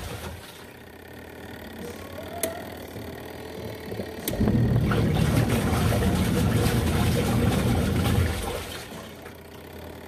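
Kuppet portable twin-tub washing machine agitating on its rinse cycle: water and clothes slosh quietly, then the agitator motor churns loudly for about four seconds from a little under halfway and stops, leaving quieter sloshing.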